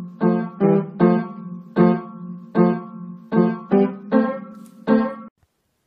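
Poorly played keyboard music: the same low note or chord is struck about nine times at an uneven pace. It stops abruptly a little after five seconds in.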